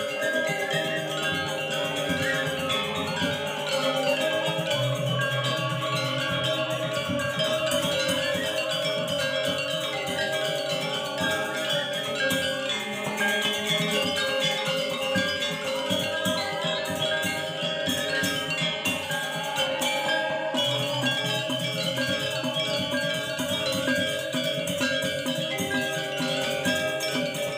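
Balinese gamelan playing: bronze metallophones ringing in a dense, steady texture of sustained metallic tones, with lower notes coming in about five seconds in and again about twenty seconds in.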